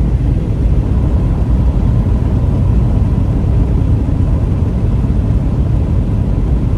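Car interior road noise while driving: a steady low rumble of tyres and engine heard from inside the cabin.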